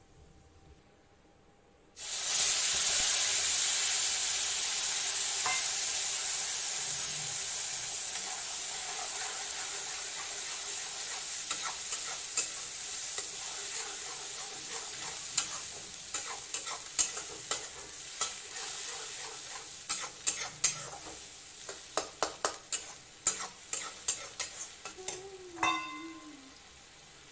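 Red masala paste tipped into hot oil in a kadhai, starting to sizzle loudly all at once about two seconds in and slowly dying down as it fries. In the second half, a spatula stirring the masala, scraping and clicking against the pan.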